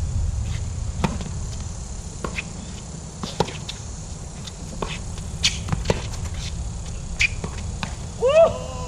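Tennis rally on a hard court: sharp pops of the ball off the strings and its bounces, about one a second, over a low steady rumble. A short pitched cry comes near the end.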